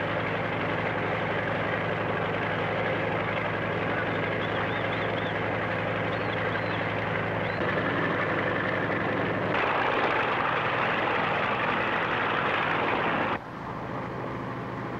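Transport aircraft engines running on the ground, a steady loud drone with a low hum under it. The sound changes suddenly about two-thirds of the way in and drops in level near the end.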